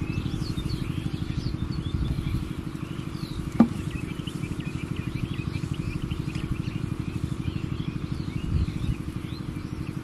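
An engine running steadily with a fast, even beat, while birds chirp over it; a single sharp click is heard about three and a half seconds in.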